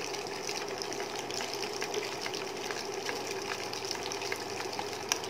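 Breaded potato-and-lentil kababs shallow-frying in hot oil in a pan: a steady sizzle full of fine crackles. A single sharp tap comes near the end.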